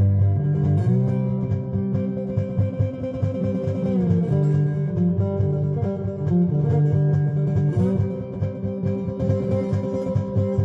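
Background music: guitar-driven instrumental with a bass guitar line and a steady beat.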